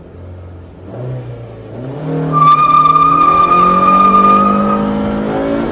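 Honda Civic FD6's i-VTEC four-cylinder engine held at raised revs, then a hard clutch-drop launch about two seconds in: the tyres squeal through the wheelspin while the engine pulls up through first gear at full throttle, heard from inside the cabin. The engine note climbs steadily, then drops sharply at the very end as the revs fall.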